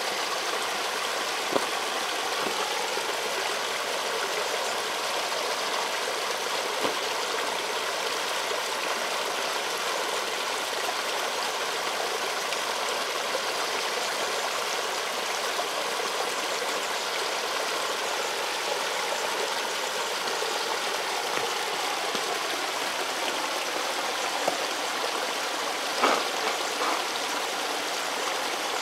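Small stream of water running steadily with a constant trickling hiss, with a few brief sharper drips here and there, the clearest a little before the end.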